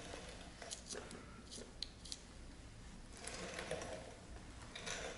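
Faint rubbing and rustling of a gloved hand wiping tire coating onto a tire's rubber sidewall with an applicator pad, with scattered light clicks and taps of handling.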